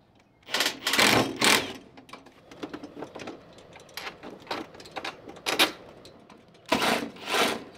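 Cordless drill driving M6 bolts into the coop's steel frame in short bursts of running. Two long bursts come about a second in and near the end, with shorter ones between.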